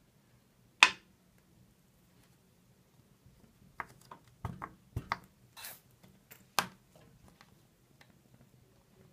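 A single sharp click about a second in, then a run of short plastic clicks and crackles as the cap of a thin plastic water bottle is screwed shut and the bottle is gripped, from about four to seven seconds in.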